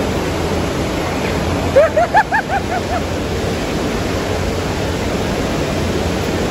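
Steady noise of a busy airport arrivals forecourt. About two seconds in comes a quick run of about six short, high-pitched calls.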